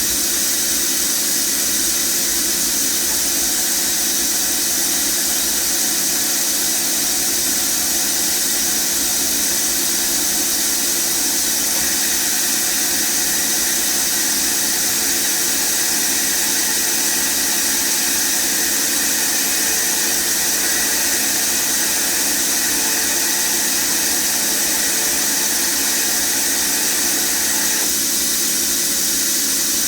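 FANUC Robodrill α-T21iFLa vertical machining centre running, its BT30 spindle giving a steady high whine over a hiss. An extra high tone comes in a little before halfway and drops out near the end.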